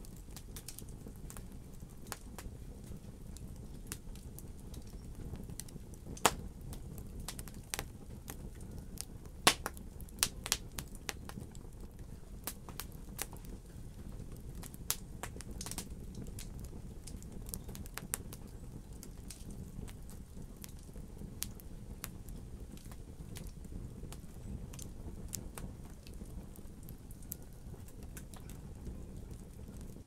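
Wood logs burning in a fireplace, crackling with irregular sharp pops and snaps over a steady low rumble of flame. The loudest pops come about six seconds in and at nine to ten seconds in.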